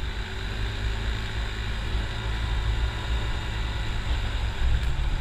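Motor scooter riding along a road: a steady engine drone under a low rumble of wind noise.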